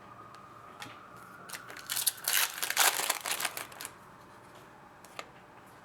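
Foil trading-card pack wrapper crinkling and tearing in a burst of crackles in the middle, with a few light clicks before and after.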